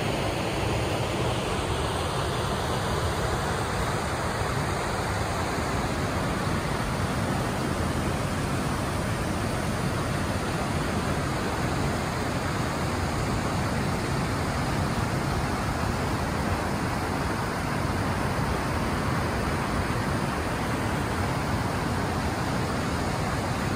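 Steady, even rush of water from a waterfall and stream running over rocks.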